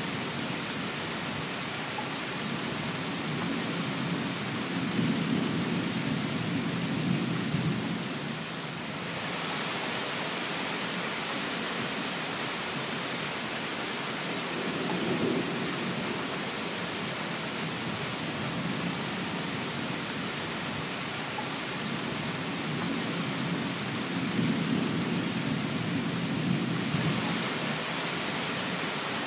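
Steady heavy rain, with thunder rolling low three times: a few seconds in, around the middle, and near the end.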